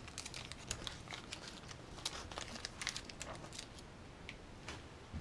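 Small plastic hardware bag crinkling and rustling as it is handled and opened, with scattered light clicks throughout.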